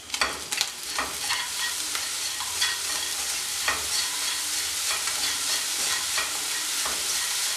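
Spatula stirring and scraping grated coconut and jaggery around a nonstick frying pan in repeated strokes, over a light steady sizzle of the mixture frying in ghee.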